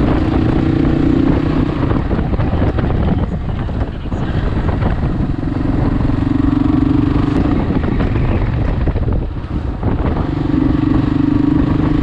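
Kawasaki KLR650's single-cylinder engine running under way. It pulls steadily, with the note easing off briefly about four seconds in and again near the end.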